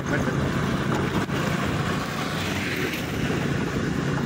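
Engine of a moving vehicle running steadily, with the hiss of wind and tyres on a wet road.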